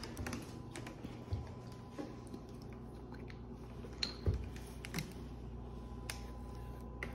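Scattered light clicks and taps of a plastic water bottle being handled and its screw cap twisted, with a dull thump about four seconds in, over a faint steady hum.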